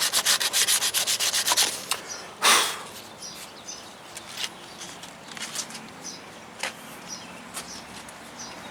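Hand scrubbing the chafed spot on a truck's wiring loom to clean it before sealing it with silicone. The strokes are quick and rhythmic, about ten a second, and stop after about two seconds. A short loud rush of noise follows about half a second later, then faint scattered clicks.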